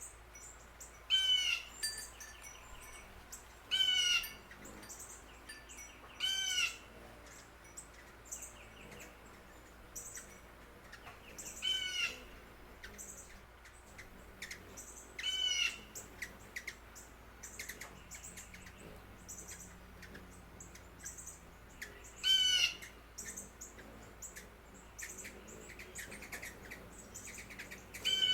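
A bird repeating a short call note about seven times, every few seconds, with fainter high chirps of other birds in between.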